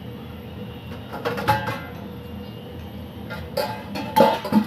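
Steady low rumble of a gas stove burner heating oil in a frying pan, with a few short clattering knocks about a second and a half in and again near the end, the last the loudest.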